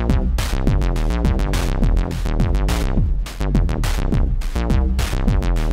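Moog Mother-32 analog synthesizer playing a fast sequenced bass line through its resonant filter, each note's cutoff swept down by an extra Quadrax envelope while the amp stays open, so the resonance falls in quick downward sweeps. Sharp drum-machine hits play along in an even rhythm.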